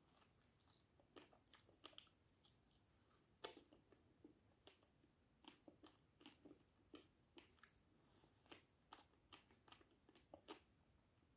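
A person chewing a fresh fig: faint, irregular wet mouth clicks and smacks.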